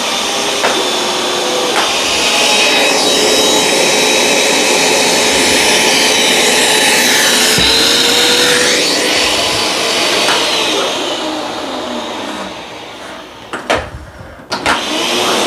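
Hoover Dual Power Max upright carpet cleaner running on a rug, making rinse passes with plain water: a steady suction-motor and brush noise whose pitch rises and falls as the machine is pushed and pulled. Near the end it goes quieter for a moment, with a couple of knocks.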